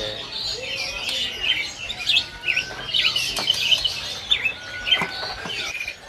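Caged songbirds chirping and twittering, many short quick calls overlapping one another.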